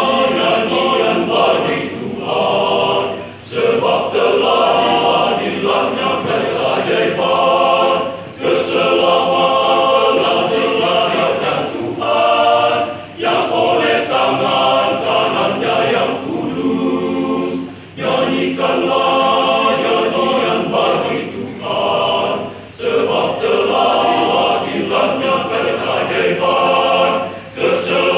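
Men's church choir singing a cappella in harmony, in long phrases with a short breath pause every four or five seconds.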